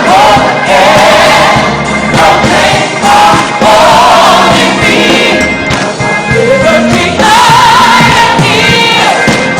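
A choir singing a gospel praise song with accompaniment, with a long held note from about seven seconds in.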